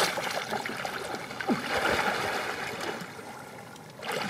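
Muddy pond water sloshing and splashing around a person wading chest-deep and pushing through it, loudest at the start and easing off.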